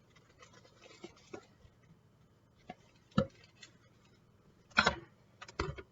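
A utensil scraping and knocking in a mixing bowl as stiff buttercream frosting is stirred by hand, with scattered scrapes and a few sharp knocks. The loudest knocks come about three seconds in and again near the end.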